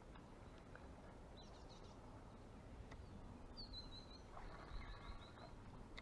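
Faint birdsong over a quiet background: a brief high chirp about a second and a half in, then a run of chirping calls from about three and a half to five seconds in.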